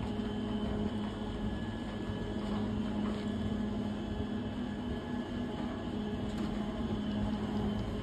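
Chairlift bottom terminal machinery running: a steady, even machine hum at one constant low pitch.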